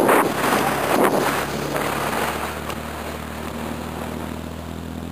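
Wind buffeting the microphone, dying down after about two seconds as a steady low engine drone from the parasail tow boat comes up underneath.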